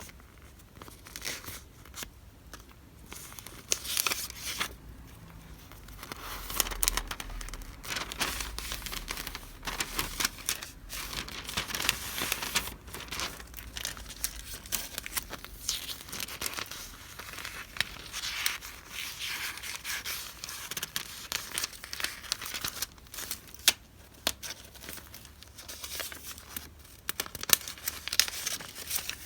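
Paper and plastic wrapping being handled and opened: continuous crinkling and tearing with many sharp crackles, a few louder snaps among them.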